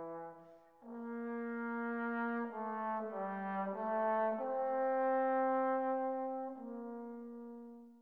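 Background music of slow, held brass chords, horn-like, moving through several chord changes and fading out near the end.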